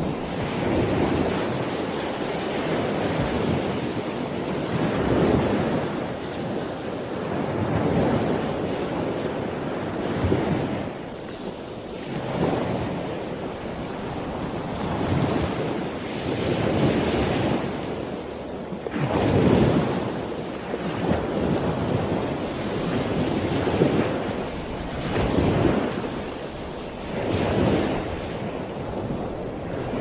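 Lake water washing in swells every two to three seconds, mixed with wind blowing across the microphone.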